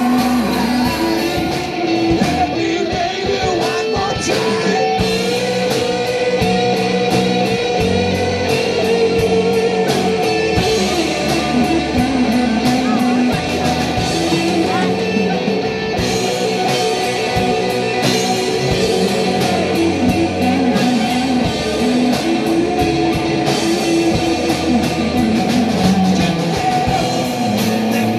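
Live rock band playing: electric guitars, bass and a drum kit, with cymbals ticking steadily over a sustained, bending melody line.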